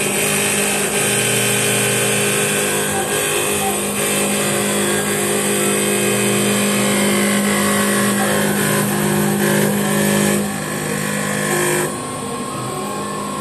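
CNC wood turning lathe running, its cutter shaving a spinning wooden spindle: a noisy cutting sound over a steady motor hum. The cutting noise eases about ten seconds in and drops off sharply near the end, leaving mainly the machine's hum.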